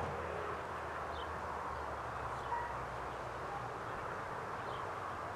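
Outdoor ambience: a steady hiss of background noise with a low hum that fades about three seconds in, and a couple of faint high bird chirps.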